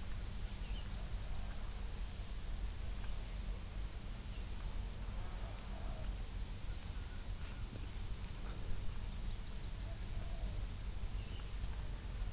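Birds chirping in scattered short, high calls, with a quick run of repeated notes about nine seconds in, over a steady low rumble.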